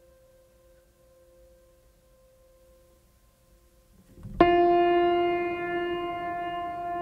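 Background music: faint held tones, then about four seconds in a loud note comes in suddenly and holds steady.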